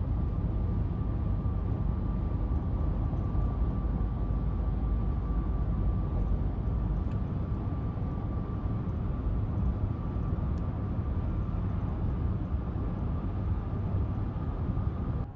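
Steady road and engine rumble heard from inside a moving car, with a thin steady whine over it; no firework bangs stand out.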